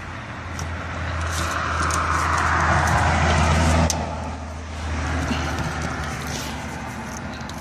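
A car passing on the street, its sound swelling and then fading about four seconds in, with a few light clicks.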